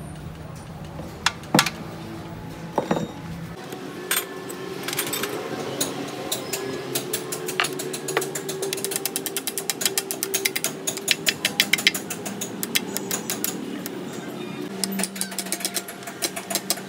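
Metal clicking and clinking from the shift rails and selector forks of a Fiat 680 tractor's opened gearbox being worked by hand. A few separate knocks at first, then a fast run of sharp clicks through the middle.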